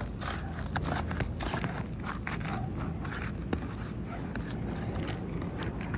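Irregular scraping and crackling of a tool worked between roof shingles, checking whether the shingle above is sealed to the one below.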